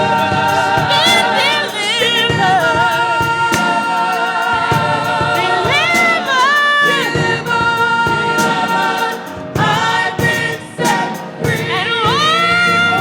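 Gospel song: voices singing with a choir, holding notes with vibrato and running through sliding melodic turns over sustained accompaniment.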